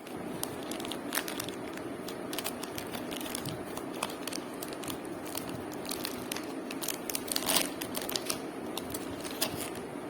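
Plastic cookie packaging crinkling as it is handled and torn open, with irregular sharp crackles, the loudest cluster about seven and a half seconds in, over steady background noise.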